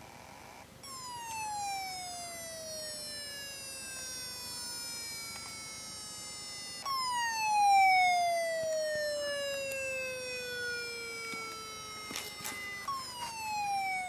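Very old laptop hard drive running on an adapter and making a strange whine: a tone that starts suddenly and glides down in pitch over about six seconds, starting over three times. A few knocks come near the end.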